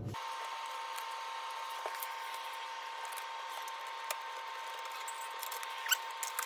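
A few faint clicks and rustles as a fan's power wire is worked around the back of a refrigerator compressor, over a steady high-pitched hum.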